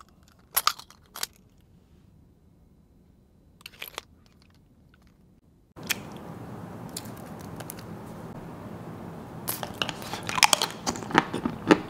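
A few sharp plastic clicks from a capsule-shaped plastic pen held in the teeth. Then, over a steady hiss, a dark chocolate coin is bitten: scattered snaps building into a quick run of loud crunches near the end.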